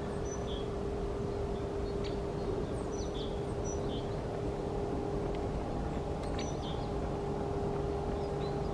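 A steady mechanical hum with one constant tone over a low rumble, with short high bird chirps and quick falling whistles scattered over it.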